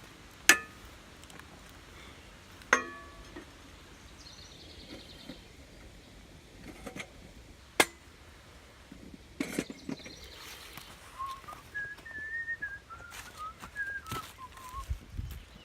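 Three sharp metallic clinks, one with a brief ring, typical of a utensil knocking a cooking pan. Between them comes a short high trill. In the second half there are a few seconds of wavering whistled notes.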